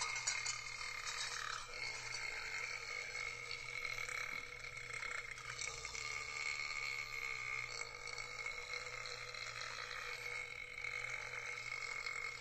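A person burping.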